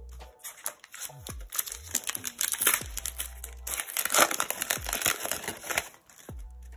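Foil wrapper of an Upper Deck hockey card pack crinkling and tearing as it is ripped open by hand. The crinkling is loudest about four seconds in and stops about a second before the end.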